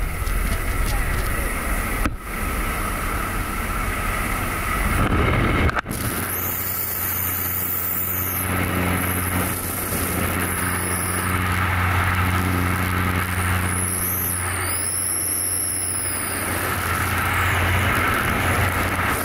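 Light aircraft's engine and propeller droning steadily under rushing wind from the open jump door, with a sudden break about six seconds in.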